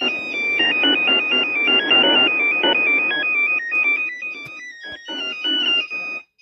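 Electronic phone-ringtone melody of quick stepped notes played through a small loudspeaker, with a rough hiss under it; it breaks off briefly a couple of times near the end.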